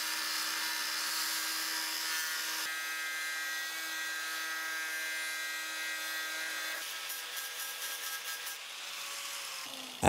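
Angle grinder with an abrasive disc grinding a V-notch into a flat steel bar held in a bench vise: a steady motor whine with the hiss of the disc on the metal. The tone shifts twice as the grinding goes on and eases slightly near the end.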